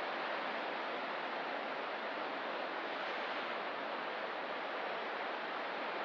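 Ocean surf washing steadily, an even hiss with no single breaker standing out.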